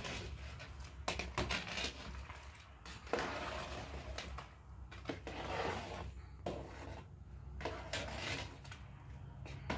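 A long ladle stirring in a large aluminium cooking pot, scraping and knocking against the pot's sides and bottom every second or so, over a low steady hum.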